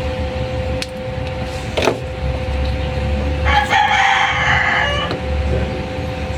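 A rooster crows once, about three and a half seconds in, for about a second and a half. Under it a steady hum runs, with a few small clicks from hands working a cable connector.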